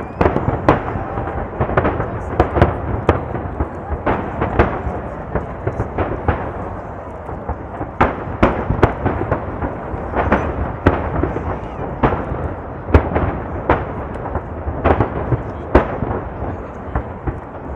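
Aerial fireworks shells bursting in rapid, overlapping succession: sharp cracks and booms several times a second over a continuous rumble and echo from the barrage.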